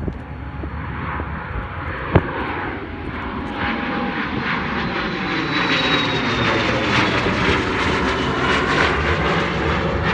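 Twin-engine business jet climbing out at high power and passing overhead: a steady jet rush that grows louder, with a thin high whine that falls in pitch as it goes over. A single sharp knock about two seconds in.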